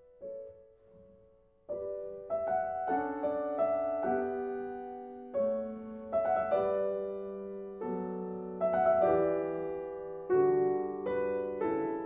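Piano music: a few soft notes, then fuller, louder chords from about two seconds in, each struck and left to ring.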